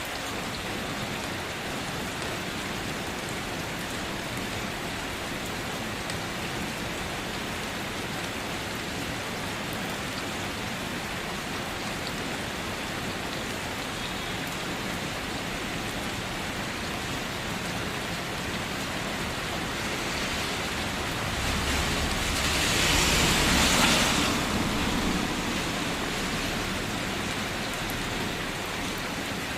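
Steady rainfall, an even hiss of drops on surfaces. About three-quarters of the way through it swells louder for a few seconds, with a low rumble of distant thunder.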